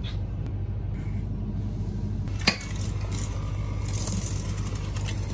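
An electric hand mixer runs in a steel bowl of cookie dough through the second half, after a sharp click about halfway. A steady low hum underlies the whole stretch.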